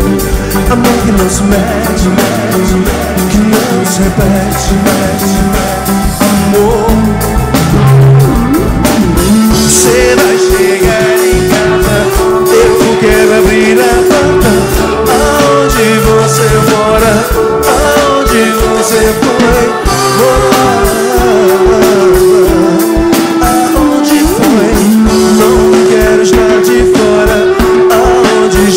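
Reggae band playing live: drum kit, bass and electric guitar, with long held melodic notes over the beat and some singing.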